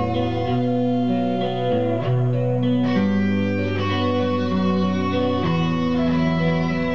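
Guitar music: plucked notes ringing over a low bass line, the chords changing about once a second.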